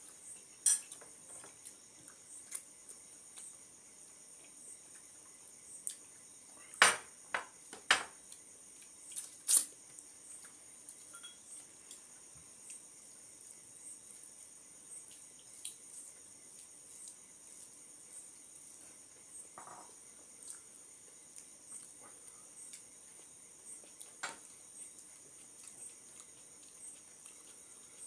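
Table-side eating sounds: soft ticks of hands working rice on plates, with a few sharp clinks of glass and ceramic dishes, the loudest cluster between about 7 and 10 seconds in and one more near the end. A steady high trill of crickets runs underneath.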